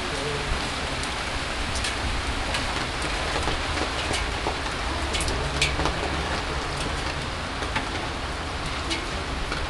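Heavy rain falling steadily, a continuous hiss with scattered sharper ticks of drops hitting close by.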